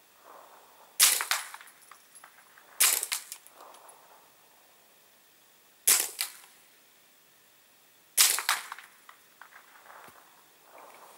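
Ruger 10/22 Takedown .22 LR semi-automatic rifle fired four times through a suppressor, unevenly spaced about two to three seconds apart. Each shot is a sharp, short report with a brief echo trailing off.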